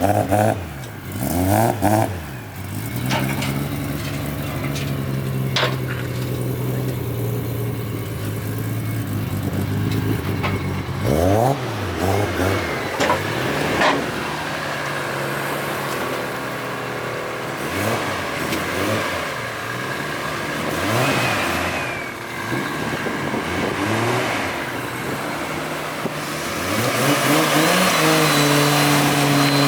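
A car engine revving and pulling away, its pitch climbing and dropping back several times as it accelerates and changes gear, with a few sharp clicks along the way.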